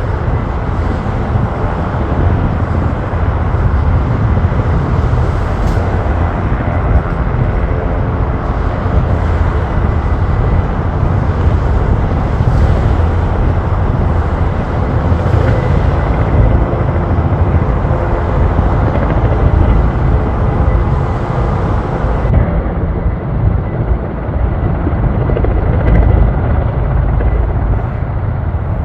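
A Surion firefighting helicopter's rotor and turbine engines running steadily and loudly, a deep throb with a hum.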